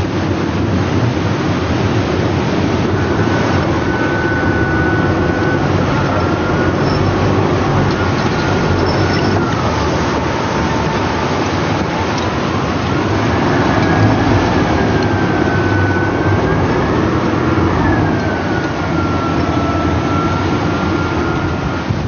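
Winch motor running steadily as it hauls a supply bag up a cable over the sea, with a thin whine that rises and falls in pitch.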